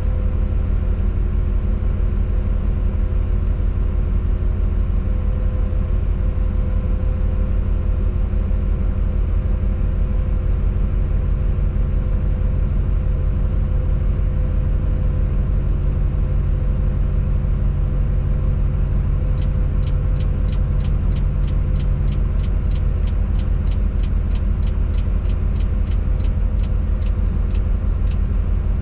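Diesel engine of a Tadano ATF 180G-5 all-terrain crane running steadily, heard from inside the operator's cab. About two-thirds of the way in, a rapid regular ticking of roughly three ticks a second starts and keeps going.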